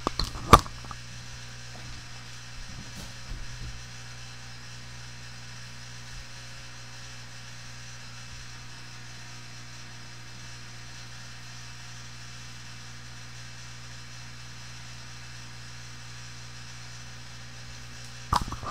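Steady low electrical hum with a sharp knock about half a second in and a few faint handling sounds around three seconds.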